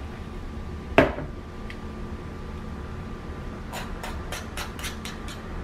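Metal spoons working thick biscuit dough off onto a parchment-lined pan: one sharp clink about a second in, then a quick run of light clicks and taps near the end.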